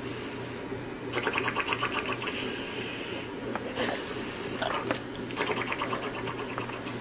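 An old woman snoring: two long, fast-rattling snores of about two seconds each, with short rising whistling breaths between them. The rattle sounds like an engine cranking that won't catch.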